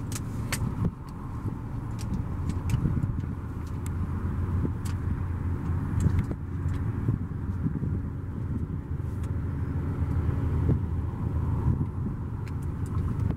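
Engine idling steadily: a low, even hum with scattered sharp clicks over it.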